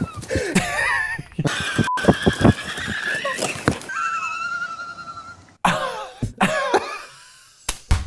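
A person's high-pitched, wheezing, squealing laughter, in a string of short bursts with several abrupt edits between them.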